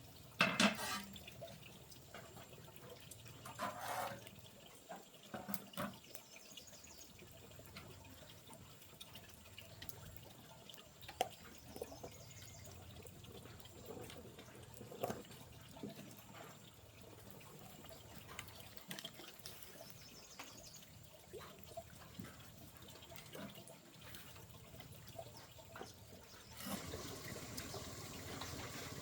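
Water running steadily, with scattered light clicks and knocks; the water grows louder near the end.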